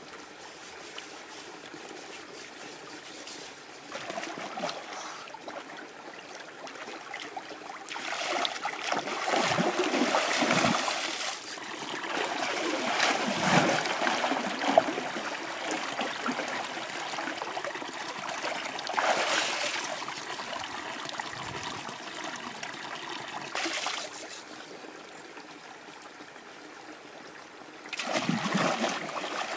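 Water splashing in a shallow stream as a person wading waist-deep scoops and throws water over himself, in several bursts that are loudest about a third of the way in and again near the end, over a steady trickle of the stream.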